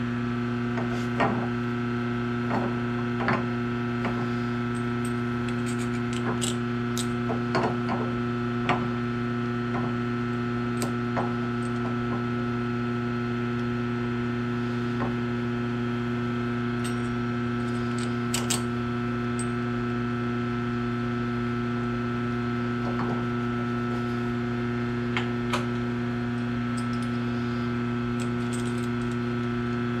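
Steady electrical mains hum, with scattered light metallic clicks and taps as a 5C collet chuck is handled and wiped on a lathe's D1-8 cam-lock spindle nose. The taps come mostly in the first ten seconds, with a few more later on.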